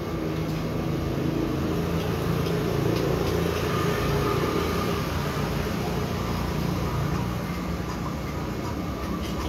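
Steady street traffic noise: motor vehicles running past, a continuous low hum that swells a little about three seconds in.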